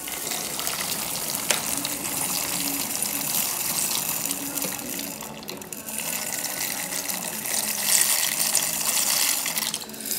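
Dry elbow macaroni sliding out of a glass jar and pouring into a steel pot of boiling water: a steady rushing, pattering hiss of the pasta falling into the bubbling water. It dips briefly about halfway through and swells again near the end as the jar is emptied.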